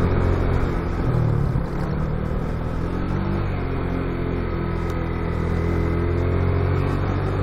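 Yamaha Vixion single-cylinder motorcycle engine pulling steadily on the move, heard from the rider's seat over wind and road noise. The engine note dips and rises about a second in, then holds fairly even with small throttle changes.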